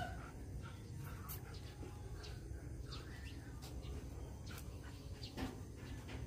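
Faint outdoor yard ambience: a low steady hum with scattered short, high chirps. At the very start, the held note of a rooster's crow is just ending.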